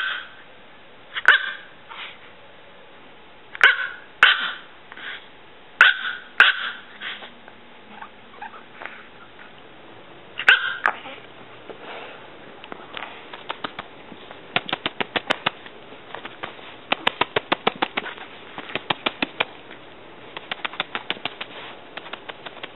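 A tiny chihuahua barking: short, sharp, high-pitched barks, singly or in pairs, for the first half. After that come quicker bursts of very short sharp sounds, about ten a second.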